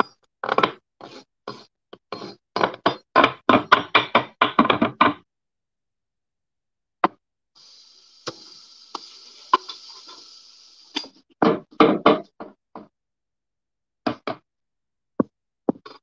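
Kitchen knife chopping vegetables on a wooden cutting board: a quick run of knocks, about four a second, for the first five seconds, then more scattered strokes later on. In the middle a steady hiss lasts about three seconds.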